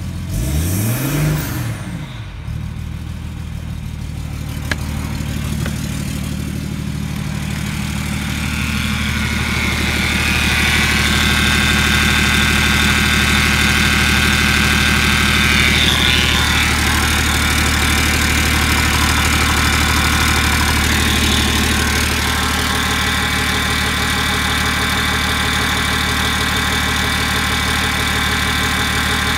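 BMW M57D25 2.5-litre straight-six turbodiesel giving a short rev about a second in, then idling steadily. It is heard muffled from the driver's seat at first, then louder and with more diesel clatter once heard in the open engine bay.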